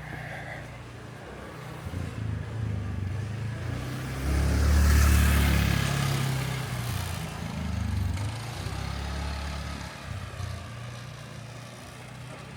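Street traffic, with a motor vehicle passing close by: it grows loudest about five seconds in, then fades away.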